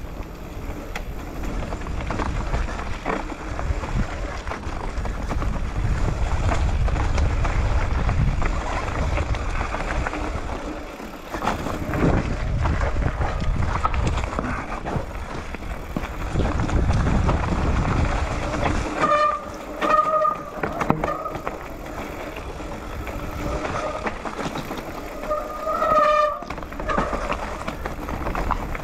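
Mountain bike riding down a dirt forest trail: tyres rolling over dirt and leaves, the bike rattling over bumps, and wind buffeting the microphone. Several short squeals from the brakes come about two-thirds of the way in and again near the end.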